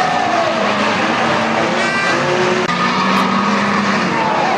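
A pack of unlimited banger race cars racing, several engines running together at different pitches that rise and fall.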